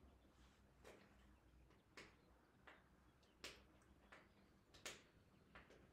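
Near silence: room tone with a low hum, broken by about six faint, irregularly spaced clicks.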